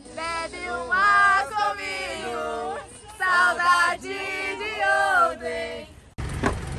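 A group of people singing and chanting together in a cheerful call-and-response chant, breaking off abruptly near the end.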